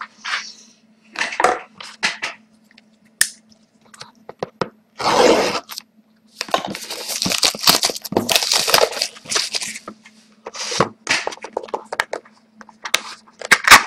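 Plastic shrink-wrap being torn and crinkled off a sealed box of hockey cards, and the box being opened: irregular crackles and rustles, with a longer stretch of crinkling in the middle. A faint steady hum sits underneath.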